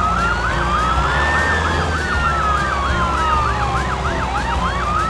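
Police siren sounding, a fast yelp rising and falling about three times a second layered over a slower wail that climbs and sinks over several seconds, above a steady low rumble.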